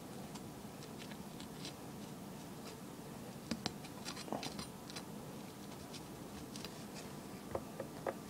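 Faint scattered clicks and scrapes of a knife and fingers working a cut-open Brain Strain chili pod, with a few sharper clicks about a third of the way in and again near the end.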